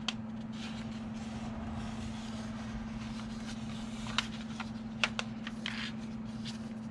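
Paper instruction manual being handled and its pages turned: a few short, light rustles and clicks, the clearest about four and five seconds in, over a steady low hum.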